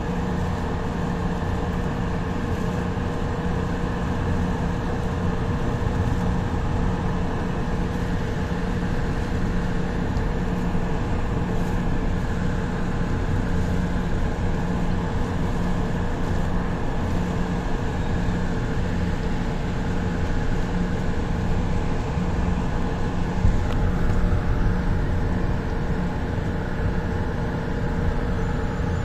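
Electric light rail train running steadily, heard from on board: continuous rolling noise with the steady hum and whine of the traction motors, briefly louder about two-thirds of the way through.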